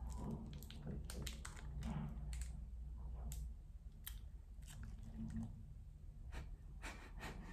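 Faint chewing of a bite of a Făgăraș chocolate bar, with scattered small clicks.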